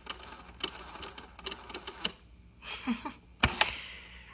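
The tape transport of a 1974 Superscope CD-301 cassette deck running in rewind, with quick, irregular mechanical ticking over a faint whir; the rewind seems to struggle. The ticking stops about two seconds in, and a little over a second later a control key clunks down once with a sharp click.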